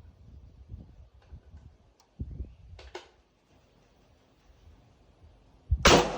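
A single loud rifle shot from a PSL semi-automatic rifle in 7.62×54R near the end, sharp with a ringing, fading tail. Before it, a few faint knocks and two quick clicks of handling.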